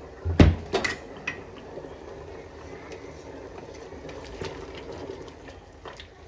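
A few sharp clinks of a metal utensil against a cooking pot about half a second to a second in, then a low steady hiss with scattered small clicks.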